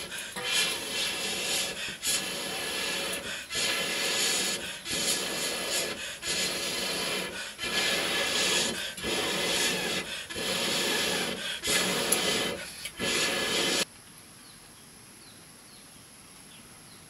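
Rhythmic rasping, rubbing strokes, one about every second and a half, stopping abruptly near the end.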